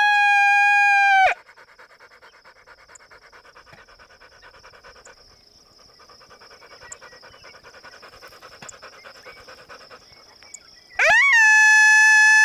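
A dog panting fast and steadily, open-mouthed. Around it, a loud long call held at one pitch cuts off sharply about a second in and starts again near the end with a quick upward swoop.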